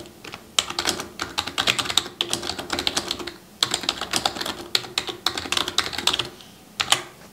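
Typing on a computer keyboard: quick runs of key clicks with short pauses between words, dying away about six seconds in.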